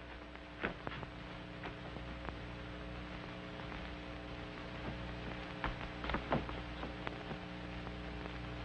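Steady hum and hiss of an old optical film soundtrack, with a few faint clicks scattered through it.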